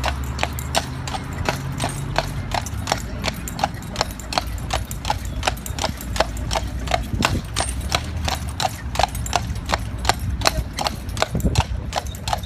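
A Clydesdale's hooves clip-clopping on an asphalt road at a steady, even pace, about four hoofbeats a second, as it pulls a carriage.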